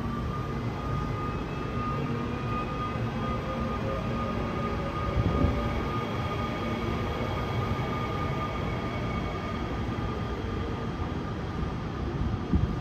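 Seoul Subway Line 3 electric train pulling out of an underground station. Its traction motors whine, rising in pitch at the start and then holding steady, over the rumble of wheels on the rails. A couple of short knocks come near the end.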